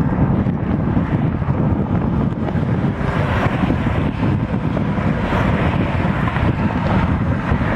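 Wind buffeting the microphone: a steady, fluttering low rumble with a fainter hiss above.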